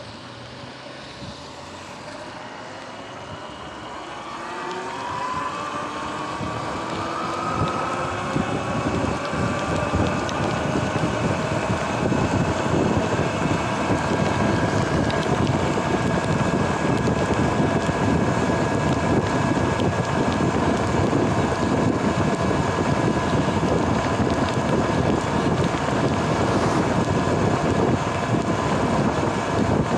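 Electric dirt bike's motor whine rising in pitch as the bike accelerates over the first ten seconds or so, then holding a steady whine at speed. Wind rushes over the microphone and tyres hiss on wet pavement, louder as the speed builds.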